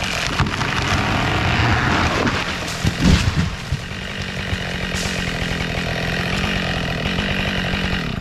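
Husqvarna 572XP two-stroke chainsaw running steadily while felling a tree, with a loud low thud about three seconds in. The saw stops near the end.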